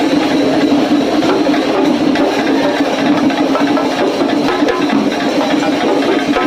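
An ensemble of chenda drums beaten with sticks, playing a dense, unbroken stream of fast strokes.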